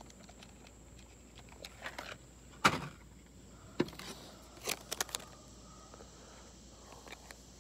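Scattered light clicks and rustles of plastic tackle packaging being handled.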